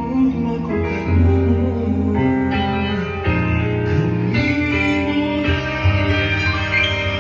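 Recorded music played back: a slow, tender song with guitar and sustained chords over a bass line.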